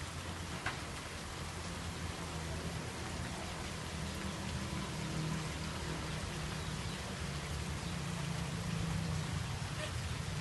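Steady rain falling, an even hiss of drops with a low rumble underneath, and one sharp drop-like tick near the start.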